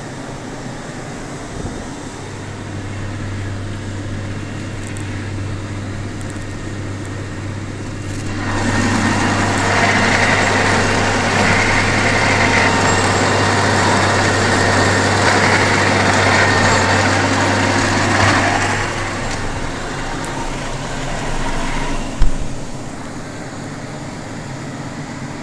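Massey Ferguson 6480 tractor's diesel engine running steadily under load while its Lely Terra 600-45 power harrow works peat soil. For much of the middle the harrow's noise is far louder, then it drops back to the steady engine drone. A single sharp knock comes near the end.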